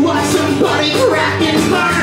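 Live acoustic music: a banjo and an acoustic guitar played together, with a man singing over them.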